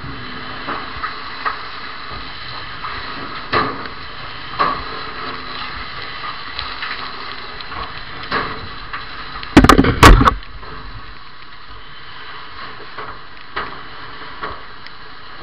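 Building fire burning with a steady rushing noise and scattered knocks and cracks, then a short cluster of very loud knocks and crashes about ten seconds in.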